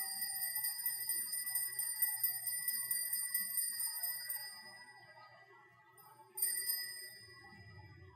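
Altar bells rung rapidly with a fast shimmering flutter at the elevation of the host during the consecration. They fade out about four and a half seconds in, then ring again briefly about six and a half seconds in.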